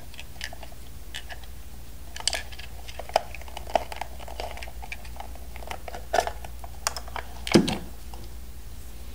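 Small hard plastic toy parts clicking and tapping together as they are handled, in an irregular scatter of light clicks with one louder knock late on.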